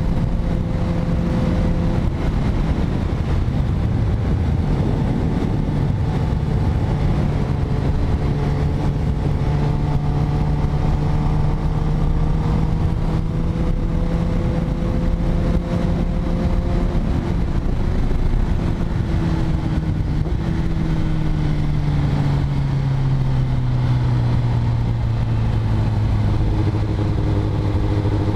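Kawasaki Ninja ZX-10R inline-four engine running under way, its pitch climbing slowly for much of the time and then falling steadily as it slows toward the end.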